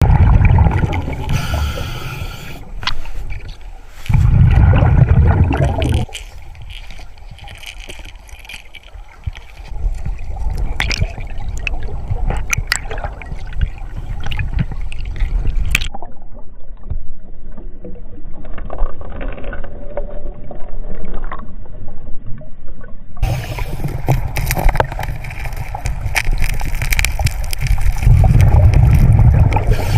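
Water gurgling and bubbling, with scattered sharp clicks and knocks, in several abrupt stretches; one quieter, duller stretch sits near the middle.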